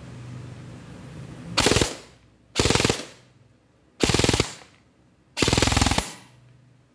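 Airsoft gun firing four short full-auto bursts into a chronograph, each about half a second long and roughly a second apart. It fires at about 20 rounds a second.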